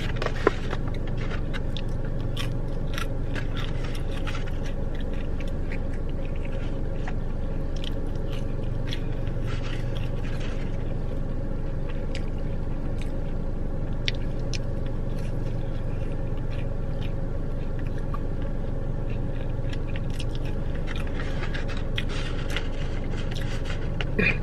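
Close-miked chewing of waffle fries gone soft and soggy, with scattered small mouth smacks and scrapes. A steady low hum of the car runs underneath.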